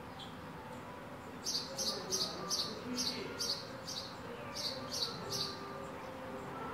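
A small bird gives a quick series of about ten short, high chirps, two to three a second, which stop about a second before the end. Underneath is a steady low hum of the street.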